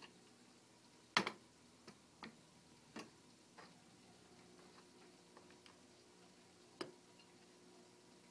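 Wire door of a Travel-Aire plastic pet carrier clicking and rattling against its frame as a cat inside paws at it and pulls it to. There are about six sharp, irregular clicks; the loudest is about a second in and the last comes near the end.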